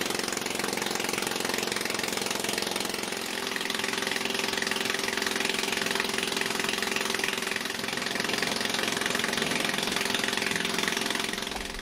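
Boat engine running steadily over a steady hiss, with its hum growing stronger about three seconds in.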